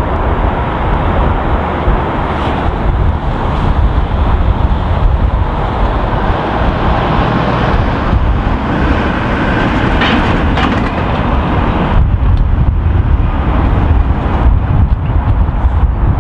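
A train passing close by: a loud, steady rushing rumble. The higher part of the noise drops away suddenly about twelve seconds in.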